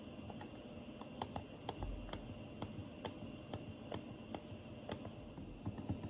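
Light button clicks on a Daikin wired air-conditioner remote control, pressed in quick succession about three times a second while stepping through the clock settings.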